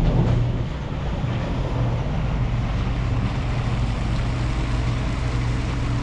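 Diesel semi truck running steadily as it pulls a loaded livestock trailer away.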